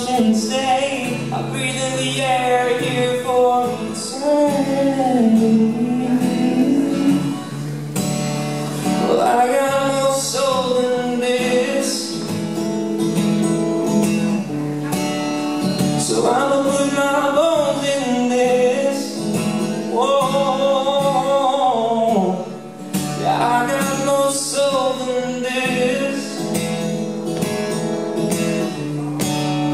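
A man singing a song live while strumming an acoustic guitar, his sung phrases gliding and held over the chords.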